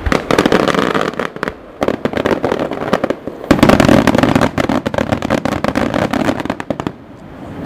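Dense barrage of fireworks: rapid, overlapping bursts and crackling with short lulls, easing off near the end.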